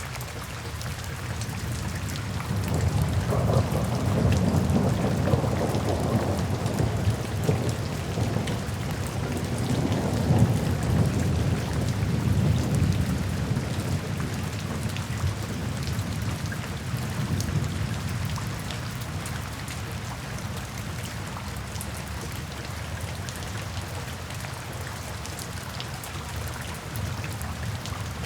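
Steady rain falling into puddles, with a long, low roll of thunder that builds about three seconds in and fades away over the next ten seconds or so.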